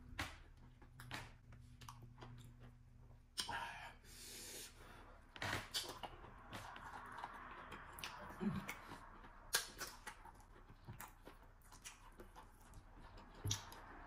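Close-up eating sounds of a person eating slimy okra soup and fufu by hand: scattered wet mouth clicks and smacks, chewing and finger sucking.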